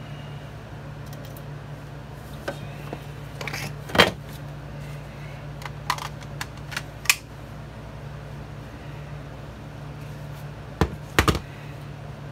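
Scattered knocks and clicks of a wooden shelf board and a cordless drill being handled and set against a wooden frame, over a steady low hum. The loudest knock comes about four seconds in, with two more close together near the end.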